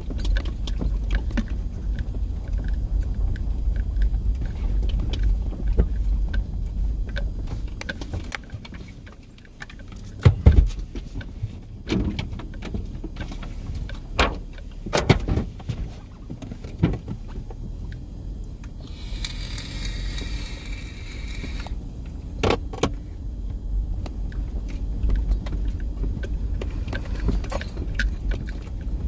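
Interior road noise of a four-wheel-drive vehicle driving off-road over rough desert ground: a steady low rumble with rattling and several sharp knocks as it goes over bumps.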